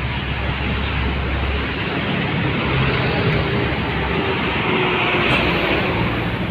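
Diesel trucks in passing road traffic: a steady engine drone and tyre noise. A deep engine hum fades out about two seconds in, and the noise swells about five seconds in as a truck passes close by.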